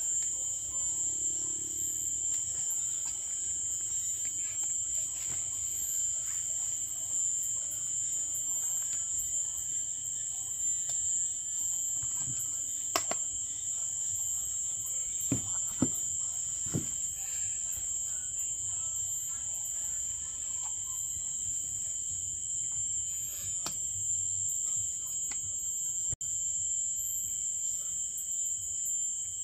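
Steady insect chorus: a continuous high-pitched shrill, with a few sharp clicks or knocks about halfway through.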